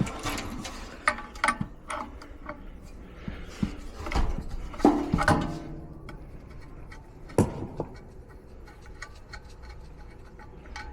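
Scattered clicks and knocks of tools and metal parts being handled and set down, with a few louder clatters and one sharp knock past the middle.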